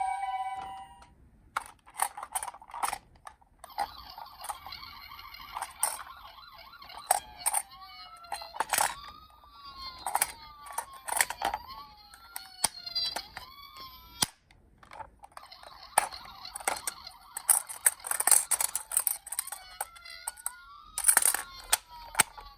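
Toy ambulance minicar handled with sharp plastic clicks and knocks, and its electronic toy siren wailing up and down in repeated glides from about seven seconds in.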